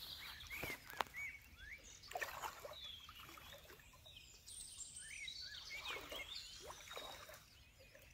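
Small birds chirping: many short, quick rising and falling calls, faint, with a single sharp click about a second in.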